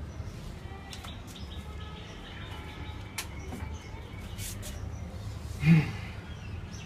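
Metal parts of a cut-open rotary compressor being handled: scattered light clinks and one heavy knock a little before the end, the loudest sound. Birds chirp faintly in the background over a steady low hum.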